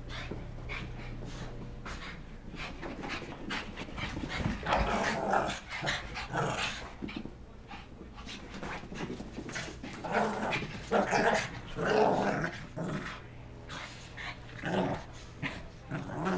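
Shih Tzus play-growling as they chase and wrestle each other, excited after a bath, in uneven bursts that are loudest about ten to twelve seconds in.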